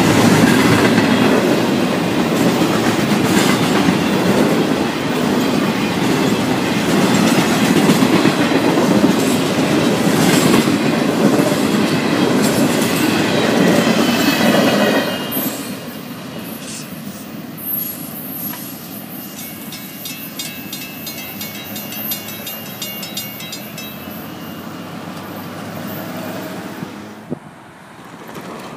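Florida East Coast Railway intermodal freight train passing close by: loud clickety-clack of well-car wheels over the rail joints, with some wheel squeal. About halfway through the last cars go by and the sound drops to a fainter rumble as the train moves away.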